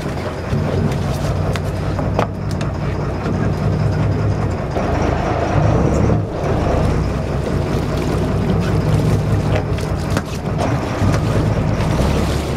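Sportfishing boat's engine running steadily with a low hum, with water splashing beside the hull.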